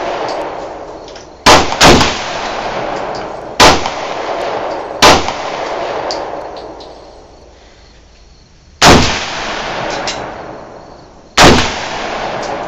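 Six rifle shots fired one at a time at an uneven pace, two of them in quick succession near the start, each followed by a long echo rolling away.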